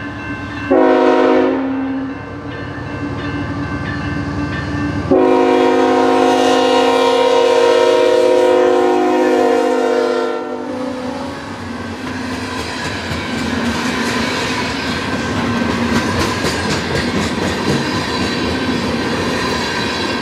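Freight train's multi-chime locomotive air horn sounding a short blast, then about three seconds later a long blast of about five and a half seconds: the closing short-and-long of a grade-crossing horn signal. The train then runs past, with the diesel locomotive followed by freight cars rolling by with steady wheel-on-rail rumble and clickety-clack.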